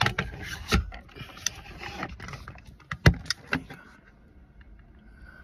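Handling noise from a phone camera being gripped and adjusted inside a car: a string of knocks and clicks, loudest at the start and about three seconds in, over a low cabin rumble. The rumble settles to a quieter steady hum near the end.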